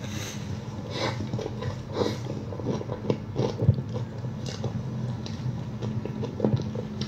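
A person biting into and chewing a bread-like pastry, a string of short, irregular mouth noises over a steady low hum.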